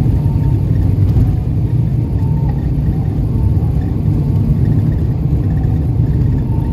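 Car driving along a gravel road, heard from inside the cabin: a steady low rumble of engine and tyres.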